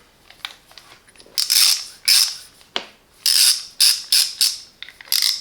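Hand ratchet clicking in about six short bursts as the handle is worked back and forth, with one sharp click about halfway through.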